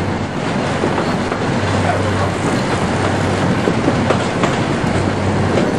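A 2 ft 6 in narrow-gauge train running along the track: a steady rumble with a low hum, faint rail clicks and a few brief, faint wheel squeals.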